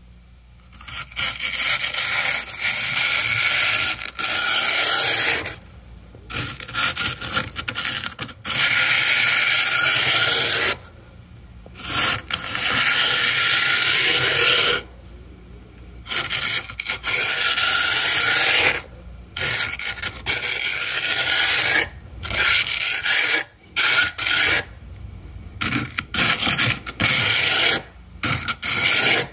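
Plastic scraper dragged through thick, fluffy frost on a deep-freezer wall, shaving it off in long scraping strokes of two to four seconds with short pauses between them; the strokes get shorter and quicker near the end.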